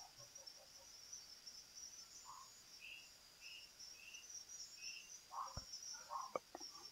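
Near silence: room tone with a faint, steady high-pitched hiss and a few soft clicks near the end.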